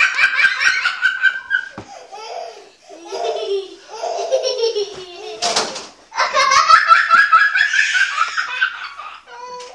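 Hearty, high-pitched laughter in rapid pulses, in two long bouts with quieter giggling between. A brief bump sounds about halfway through.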